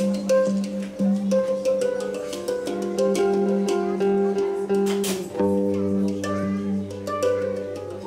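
Live hang drum music: ringing handpan notes over a steady low drone. A sharp hit comes about five seconds in, and a deeper bass drone joins right after.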